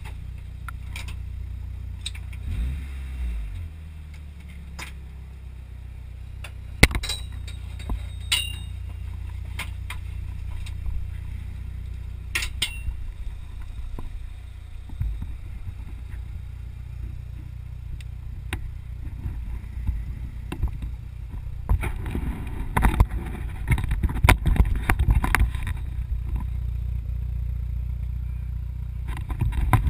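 Mitsubishi Lancer Evo Tommi Mäkinen's turbocharged four-cylinder engine idling steadily, with a few sharp clicks and knocks. About two-thirds of the way in, a louder stretch of close scraping and rustling noise begins.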